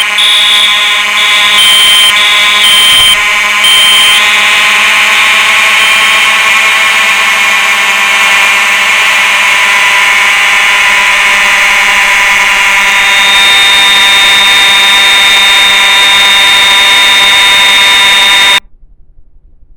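Fire alarm sounding loudly and steadily, a buzzing tone, with a higher pulsing tone over it for the first few seconds. It cuts off abruptly near the end.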